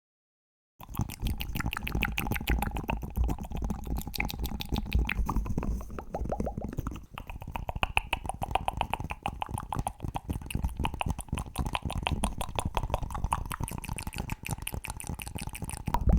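Close-miked ASMR mouth sounds and fast tapping: a dense, rapid run of sharp clicks and wet pops that starts just under a second in.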